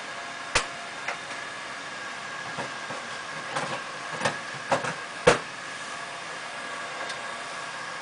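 A handful of irregular knocks and clunks as installers handle and fit an air conditioner's outdoor unit, the loudest a little after five seconds in, over a steady background hum.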